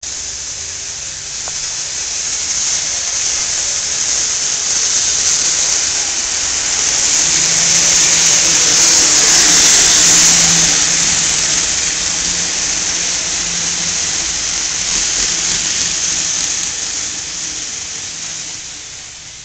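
Model diesel locomotives, a Southern Pacific Dash 9-44CW and GATX leasing units, running along the track with a steady rushing of wheels and motors. The sound swells as the train passes close by about ten seconds in, then fades.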